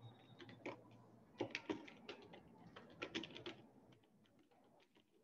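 Faint clicking of computer keyboard keys as a short phrase is typed: irregular keystrokes for a few seconds, stopping about four seconds in.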